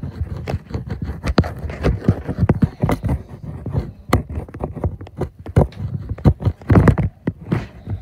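Irregular knocks, bumps and rustling right at the microphone, several a second: handling noise from a phone held close and shifting against clothing.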